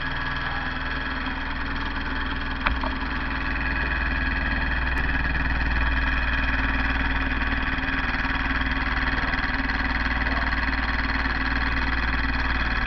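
Homemade Alpha-type Stirling engine with glass-syringe cylinders and a steel-wool regenerator running steadily at about 1200 RPM, a fast, even mechanical rhythm. A single click about three seconds in.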